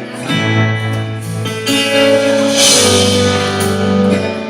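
Acoustic guitar strumming chords, each one left to ring before the next.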